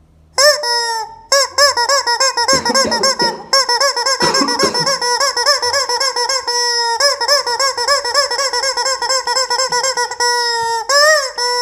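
Rubber squeaking chicken toy squeezed over and over, giving a loud, wavering squawk that rises and falls several times a second, with a few short breaks.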